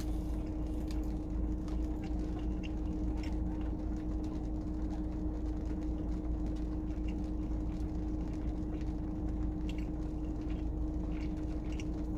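Steady hum and low rumble inside a car cabin, with one constant drone, and faint scattered clicks from chewing.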